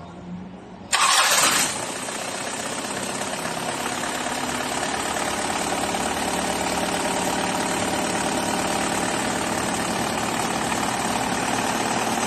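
Freshly rebuilt Mitsubishi Colt 2.8 turbodiesel engine starting: it catches about a second in with a brief loud rev, then settles into a steady idle.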